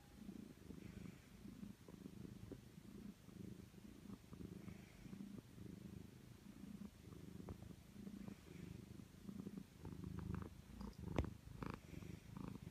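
Domestic cat purring up close, a faint low rumble, with a few soft knocks near the end as she butts her head against the phone.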